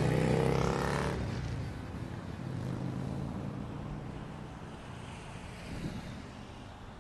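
A song fades out over the first second, leaving faint, steady traffic and road noise.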